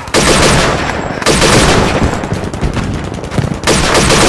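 Airsoft guns firing on full auto in three rapid bursts of about a second each, the first right at the start, the second just after it, the third near the end.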